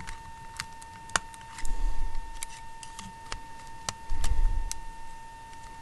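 Irregular small clicks and taps of tools working on the plastic parts of a Nikon Coolpix 7600 digital camera as it is pried apart, with two short low rumbles of handling noise about two and four seconds in, over a faint steady high tone.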